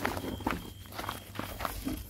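Irregular crunching footsteps on gravel, a few sharp steps each second, mixed with the rustle of woven plastic sacks being brushed.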